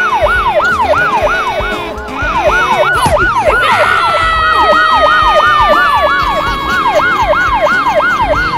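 Police siren sound effect in a fast yelp, its pitch sweeping up and down about four times a second, with a brief break about two seconds in. A steady held tone joins it from about halfway through, sliding slowly lower.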